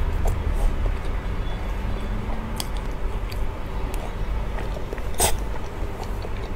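A person eating soft cream cake from a spoon: wet mouth and chewing sounds with scattered small clicks over a steady low hum, and one sharper click about five seconds in.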